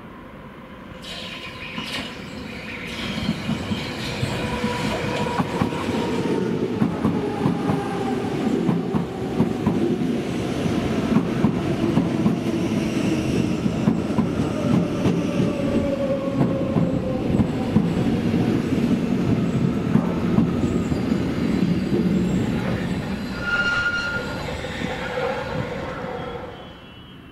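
Hamburg S-Bahn electric train running in beside the platform. Its wheels clatter over rail joints, and its motor whine falls steadily in pitch as it slows. There is a brief high squeal near the end.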